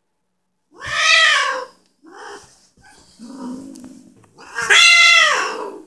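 Female tabby cat yowling twice in anger, each long call falling in pitch at the end, with low growling between them: a refusal of the tomcat's attempt to mate.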